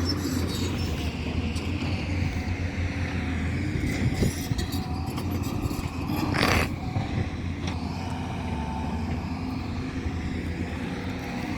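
Heavy diesel machinery, excavator engines, running steadily as a low drone, with a short hissing rush about six and a half seconds in.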